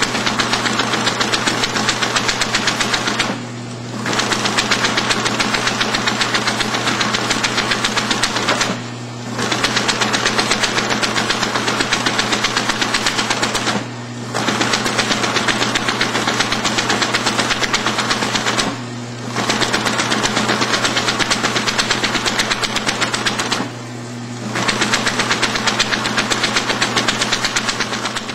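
Friction feeder clattering as it feeds stitched books, several strokes a second, stopping for a moment about every five seconds between batches. A steady motor hum carries through the pauses.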